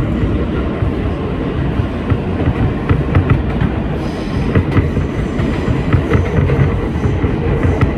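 R160B subway car with Alstom propulsion running at speed between stations: a steady, loud rumble of wheels on rail, with scattered sharp clicks from the wheels passing over rail joints.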